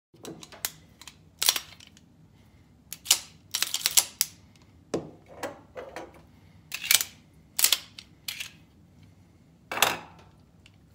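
Ed Brown 9mm 1911 pistol and its steel magazines handled on a wooden workbench: about a dozen sharp metal clicks and clacks at irregular intervals, as magazines are set down and picked up and the pistol is handled.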